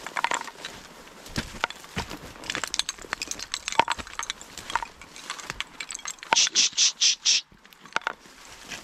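Dry marsh grass and reeds rustling and crunching as someone pushes through them on foot, with scattered light clicks, and a quick run of four or five loud crunches a little past six seconds in.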